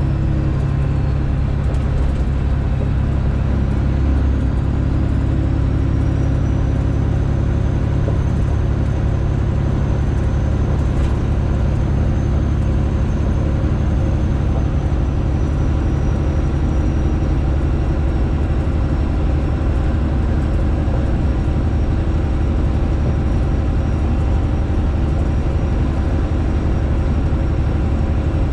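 Straight-piped Detroit Diesel engine of a Freightliner Classic XL semi truck running steadily under way, a loud, even, deep drone at a nearly constant pitch. A faint high whine rises a little a few seconds in and eases back down later.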